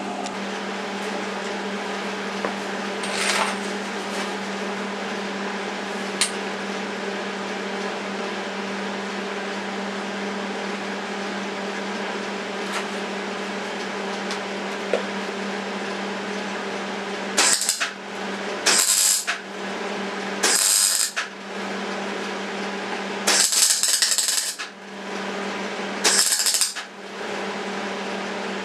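Steady electrical hum, then from about two-thirds of the way through, five short bursts of electric welding arc crackle, each a second or less: tack welds on a steel office-chair frame.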